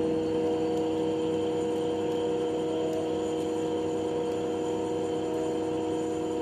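Denford Novaturn CNC lathe running a turning program, the spindle spinning while the tool cuts along a metal bar. It gives a steady hum with two strong held tones that does not change.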